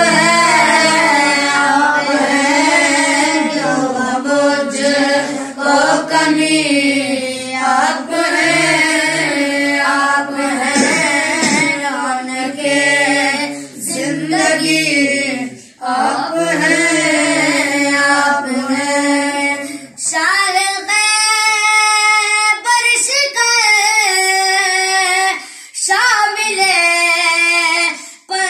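A group of boys reciting an Urdu naat together in long sung phrases. About twenty seconds in, the deeper voices drop away and higher voices carry the line.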